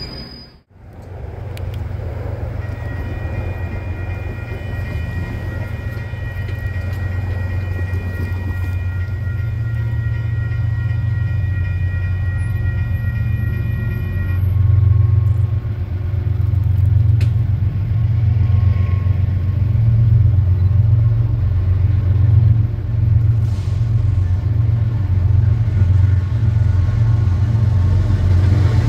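Canadian Pacific diesel freight locomotive approaching with a heavy low engine rumble that grows steadily louder and throbs as it draws near. For the first half, a train horn sounds a held chord of several notes, stopping about halfway through.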